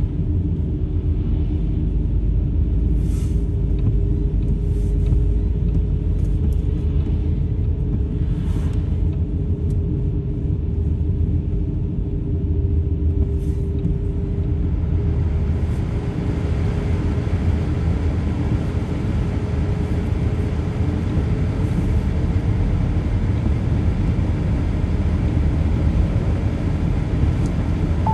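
Car driving in the rain, heard from inside: a steady low rumble of engine and tyres with a drone, and a hiss of tyres on the wet road that grows louder about halfway through.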